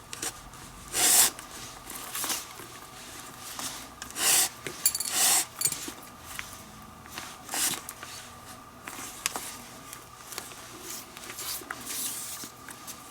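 Leather lace being drawn through the lace holes of a Rawlings baseball glove during relacing: a run of short rasping swishes at uneven intervals, the loudest about a second in and around four to five seconds in.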